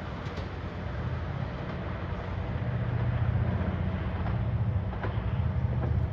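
Passing train rumbling steadily, with a few faint clicks of wheels over rail joints, growing louder about halfway through.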